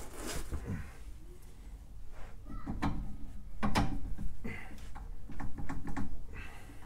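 Metal clunks, knocks and scraping as a KYB gas shock absorber on a 1971 VW bus is forced by hand onto its lower mounting bolt. A series of short, uneven knocks, most of them in the second half.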